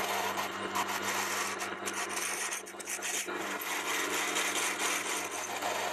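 Milling machine driving a 10 mm twist drill into a cast iron casting: a steady motor hum under a dense scratchy crackle of chips breaking, which eases briefly about halfway through.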